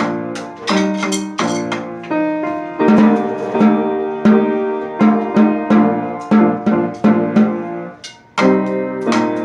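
Instrumental music played by a small ensemble: quick struck and plucked pitched notes with drums keeping time, breaking off briefly about eight seconds in before the playing picks up again.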